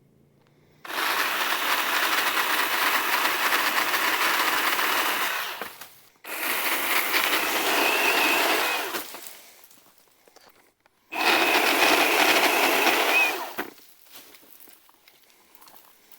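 Battery-powered pole saw running in three bursts of cutting: about 5 s, then about 3 s, then about 2.5 s, each starting and stopping abruptly with short quiet gaps between.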